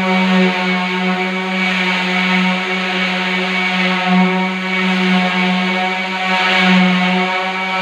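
Electric random orbital sander running on an epoxy resin door panel: a steady motor hum with a scratchy sanding hiss that swells and fades as the pad is moved across the surface.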